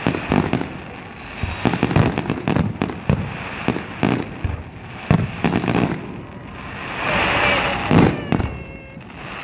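Aerial fireworks shells bursting in a rapid, irregular series of bangs. About seven seconds in, a louder rush of noise builds and ends in a big bang.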